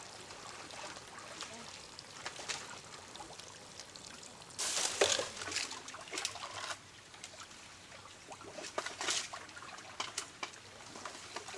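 Water sloshing and trickling as people wade waist-deep in a muddy stream and drag branches through it, with a louder burst of splashing about halfway through.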